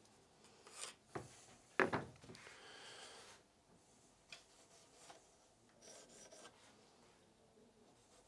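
Faint scraping and rubbing of a tool on wood in short strokes, with a louder scrape about two seconds in and a second or so of steady rubbing just after, as a board is marked out for the screw holes.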